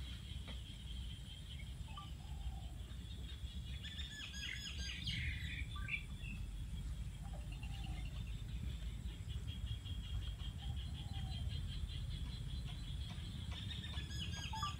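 Birds chirping, with a few calls about four seconds in and again near the end, over a steady high-pitched drone and a constant low rumble.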